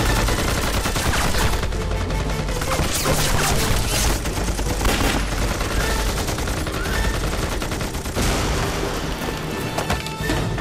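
Sustained rapid gunfire, many shots overlapping in a firefight, with machine-gun bursts among them.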